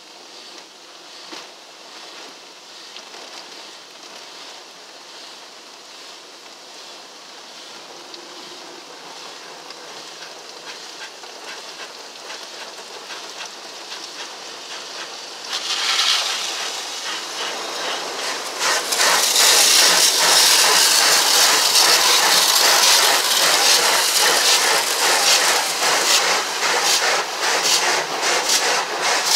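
Ryko Velvet Touch 2000 soft-touch car wash heard from inside the car's cabin: water spray hissing against the windshield and body, growing louder about 15 seconds in. From about 19 seconds the spinning red cloth strips scrub and slap across the glass with a loud, dense rapid patter.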